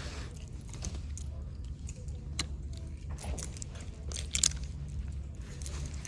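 Clothes hangers clicking and scraping on a clothing rack as garments are pushed along, in scattered sharp clicks with the loudest about four and a half seconds in, over a steady low hum.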